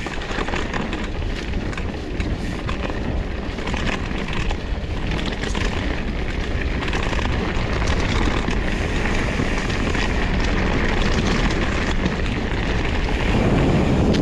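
Wind buffeting the microphone over the rumble of Trek Farley 7 fat-bike tyres rolling over the trail, with many small rattles and knocks; it grows louder near the end.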